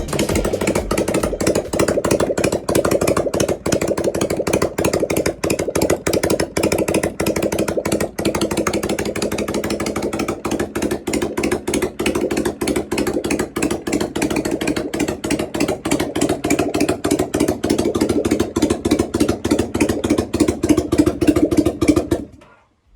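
Kawasaki Vulcan 400 Drifter's V-twin idling steadily through its exhaust, with an even pulsing beat; it cuts off suddenly near the end.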